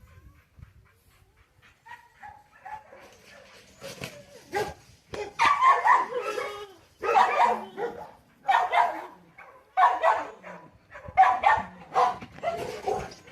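A dog barking in a run of loud barks, roughly one every second or so, starting about four seconds in after a few quieter sounds.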